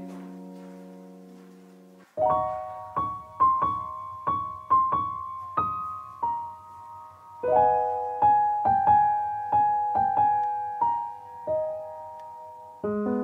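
Background piano music: a held chord fades out, then a slow melody of single notes is struck one after another, growing fuller near the end.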